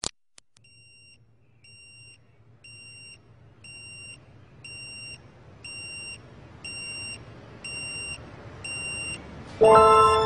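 Electronic alarm clock beeping: a short high beep about once a second, getting steadily louder. Near the end a much louder chiming melody comes in.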